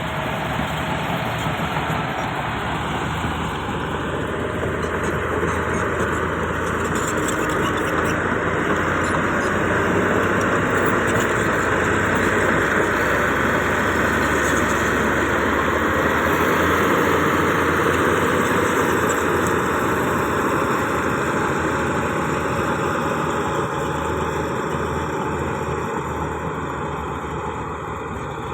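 Komatsu D155A-6 crawler bulldozer working, its diesel engine running steadily under load. It grows louder a few seconds in and eases off near the end.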